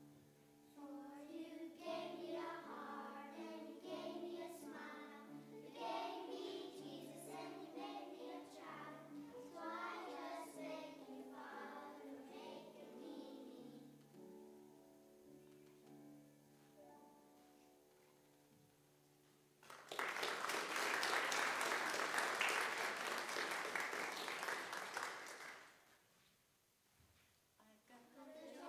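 Children singing together over instrumental accompaniment with held chords; about halfway through the voices stop and the accompaniment plays on alone to the end of the song. Then the congregation applauds for about six seconds, the loudest sound here, and it dies away.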